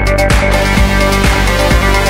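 Electronic dance music with a steady kick-drum beat, about two beats a second, under held synthesizer tones; the treble drops out briefly at the start.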